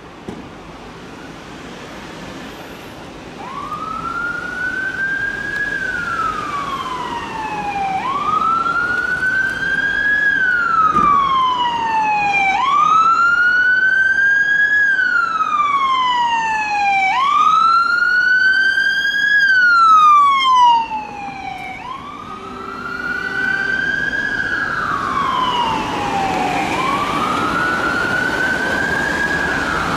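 Police car siren on a slow wail, each long rise and fall taking about four and a half seconds, repeated six times. It grows louder, drops sharply about two-thirds of the way through, then carries on.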